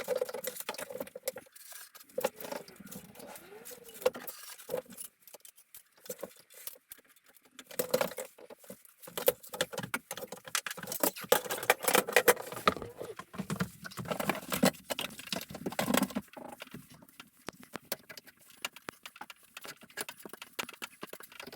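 Filling knife scraping filler into wall joints, with irregular taps and clinks of the knife against the surface and the filler tub; the scraping is busiest and loudest from about 8 to 16 seconds in.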